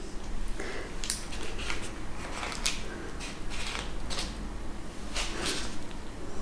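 Soft handling noises of hands folding and tucking strips of puff pastry over a filled pastry roll on baking paper: scattered light taps and paper rustles.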